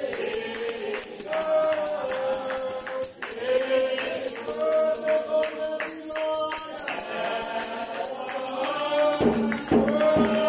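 Congregation singing a hymn together, with a tambourine shaken in a steady beat. A few low thumps come in near the end.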